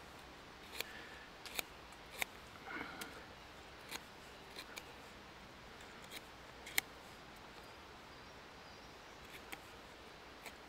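Swiss Army pocket knife whittling a wooden stick: faint, irregular sharp clicks of the blade biting into the wood, with a short scrape of a shaving cut about three seconds in.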